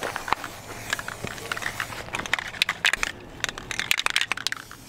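Aerosol spray paint can hissing onto a plastic hard hat, mixed with many sharp clicks and crackles.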